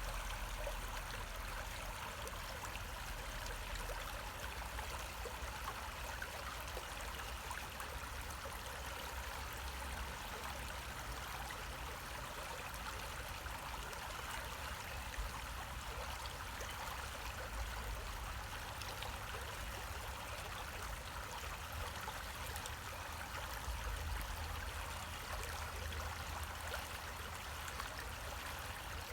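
A creek flowing: a steady rushing, trickling water sound, with a low rumble underneath that comes and goes.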